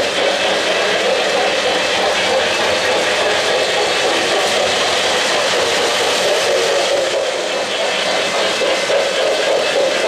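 Model freight cars rolling along three-rail O-gauge track, a steady rolling rumble of metal wheels on metal rails.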